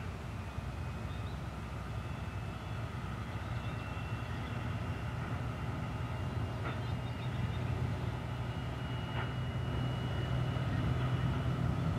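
An M62 diesel locomotive's two-stroke V12 diesel engine working steadily as it pulls a train of loaded wagons. The low drone grows a little louder toward the end, with a thin high whine above it and two brief clicks a few seconds apart.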